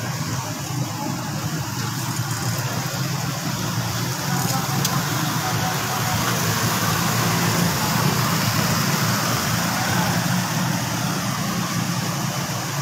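Small motorcycle and motorcycle-rickshaw engines running on a flooded street: a steady low engine hum under a constant hiss.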